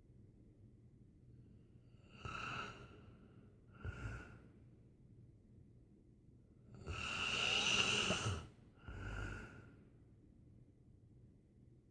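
Snoring: two short, rasping breaths a couple of seconds apart, then a long, louder snoring breath followed closely by a short one.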